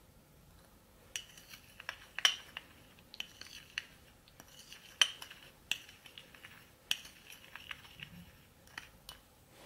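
Metal teaspoon clinking and scraping against a small glass bowl while mixing baking soda and flour: a run of sharp, ringing clinks starting about a second in, loudest about two and five seconds in.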